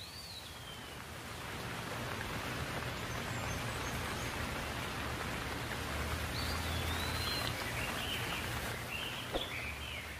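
Small birds chirping in short gliding calls, once at the start and then repeatedly in the second half, over a steady rushing hiss that grows louder about two seconds in.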